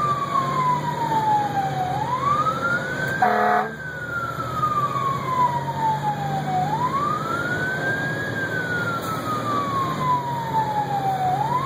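Fire-rescue truck's electronic siren in a slow wail, climbing quickly and falling slowly in a cycle of about five seconds, cut by a short horn blast about three seconds in. The truck's diesel engine hums underneath.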